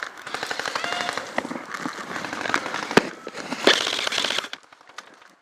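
Airsoft guns firing: rapid full-auto rattling from electric airsoft rifles for the first couple of seconds, a single sharp crack about three seconds in, and another short burst around four seconds in before it goes quieter.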